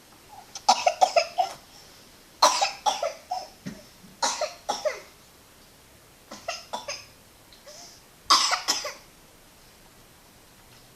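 Coughing in five short fits, each of several quick coughs in a row, the loudest fits near the start and about eight seconds in.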